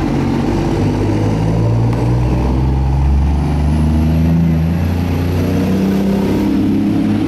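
Heavy diesel truck engine of a B-double semi-trailer working under load as it pulls away, its low note rising as it gains speed, with a faint high whistle over it.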